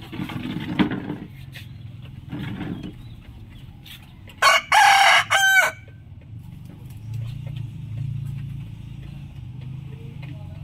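A rooster crows once, loudly, a little over four seconds in: a crow of about a second and a half in linked notes.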